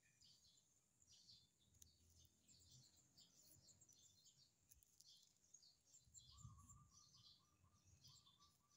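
Near silence with faint bird chirps scattered throughout, and a lower rattling trill that comes in about six seconds in.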